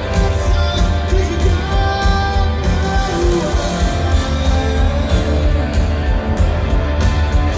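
Live rock band playing through a concert PA, with a singer and a horn section including trombone, heard from amid the crowd with heavy bass.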